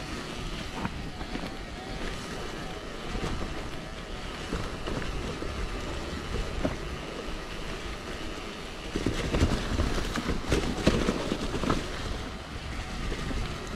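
Wind buffeting the microphone over the rumble of mountain bike tyres on a rough trail, with scattered knocks and rattles from the bike. It gets louder and rougher from about nine seconds in for a few seconds.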